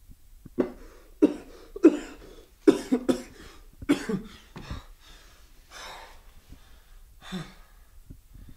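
A man jolting awake from sleep, coughing and gasping in a string of about six short, sharp bursts, then breathing out more softly a few times.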